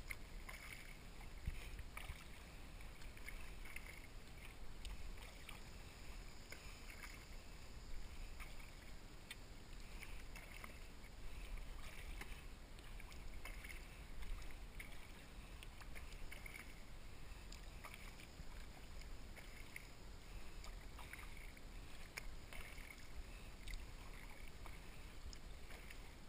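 Double-bladed kayak paddle dipping and pulling through calm river water, faint splashes and drips at a steady stroke every second or so.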